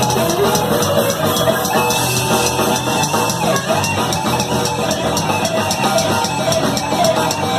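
Speed/thrash metal band playing live: loud, dense full-band sound driven by a drum kit, with a fast, steady beat of cymbal hits.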